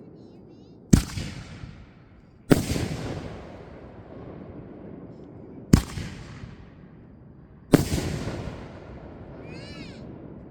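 Fireworks shells bursting overhead: four loud bangs a second or two apart, each trailing off in a rolling echo. A brief, faint high squeal near the end.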